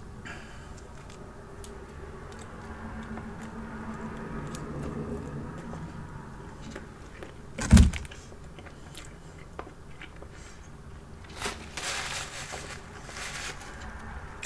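Close-miked eating of fast food: biting and chewing with small clicks, a single loud thump about halfway through, and a few crisp crunching or rustling bursts near the end.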